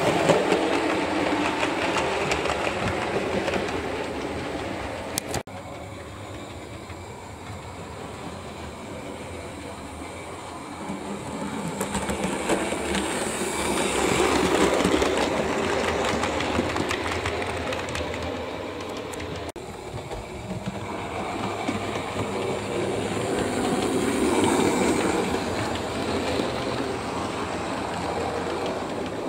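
Bachmann OO gauge Fowler Class 3F model steam locomotive and its coaches running on model railway track: a rattle of wheels clicking over rail joints with the hum of the running train. It swells and fades three times as the train passes close by.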